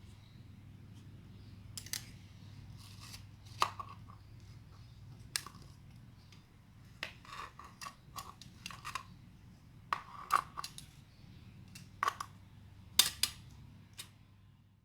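Cracking clay crackling and snapping as its crust breaks: irregular sharp crackles, a few louder snaps among them, over a steady low hum.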